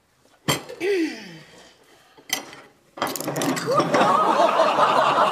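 Studio audience laughing loudly, starting about three seconds in. Before it, two clinks of crockery set down on the table.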